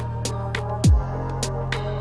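Background electronic music with a steady beat: a deep kick drum and crisp hi-hats over a sustained bass.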